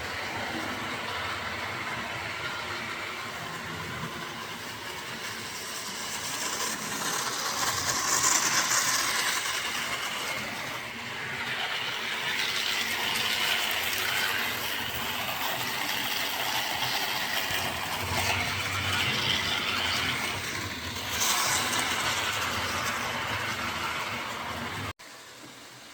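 Model train locomotives running on the layout's track: a continuous whir and rattle of motors and wheels on the rails, swelling and fading in loudness. It cuts off abruptly near the end.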